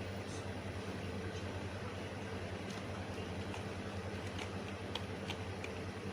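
Steady low electrical or fan hum with hiss, and a few faint light clicks in the second half.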